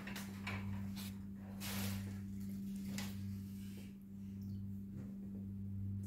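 A steady low electrical hum, with a few faint clicks and a brief rustle about two seconds in.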